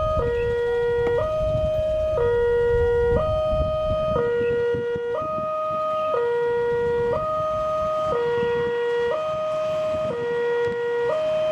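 Electronic two-tone level-crossing warning alarm, alternating evenly between a lower and a higher tone about once a second as a train approaches. A low rumble sits under it for the first few seconds.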